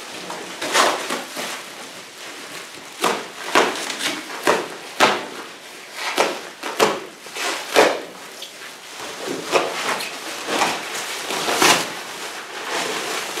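Clear plastic stretch wrap being pulled and torn off a machine by hand: irregular crinkling rustles and sharp rips, a few of them louder than the rest.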